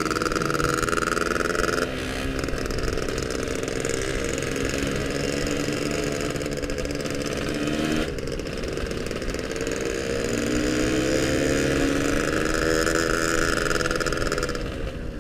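Yamaha RX-King's two-stroke single-cylinder engine running on the move, its exhaust note shifting with the throttle: it drops about two seconds in, picks up again around eight seconds, climbs gradually, then falls away near the end.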